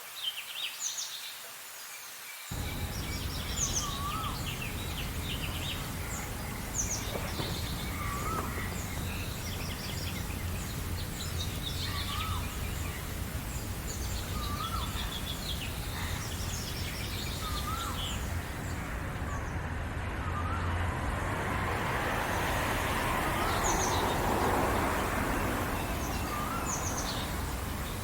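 Several birds chirping and singing, one of them repeating a short hooked whistle about every two seconds. A low steady rumble cuts in abruptly a couple of seconds in, and a hiss swells and fades near the end.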